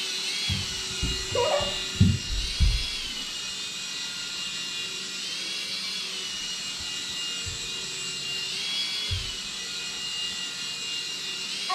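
Tiny propeller motor of a hand-controlled flying ball toy whirring as it hovers, a high whine that speeds up and slows every two or three seconds. A few low thumps about two seconds in.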